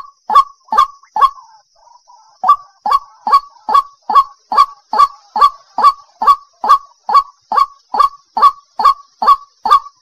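White-breasted waterhen calling: a loud single call note repeated evenly, about two and a half times a second, with a short break about a second and a half in, then the same steady run of calls.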